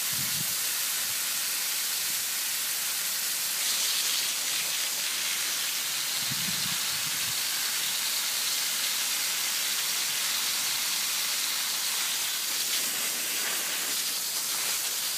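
Steady hiss of water spraying from a garden hose onto plants and wet ground.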